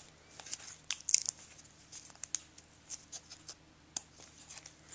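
Baseball-card pack wrapper crinkling and tearing and cards clicking and sliding against each other, in scattered short rustles. The loudest rustle comes about a second in.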